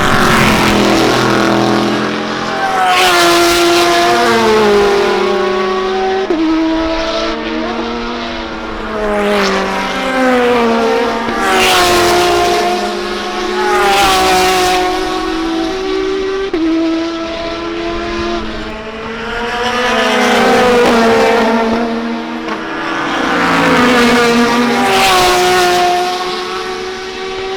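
Race cars passing one after another at racing speed, several engines heard at once. Each engine's pitch steps up and down with gear changes, and there are about six or seven loud swells as cars go by.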